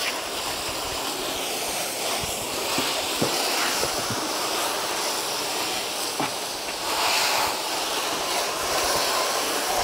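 Garden hose spray nozzle hissing steadily as its jet of water rinses degreaser soap off a plastic car bumper.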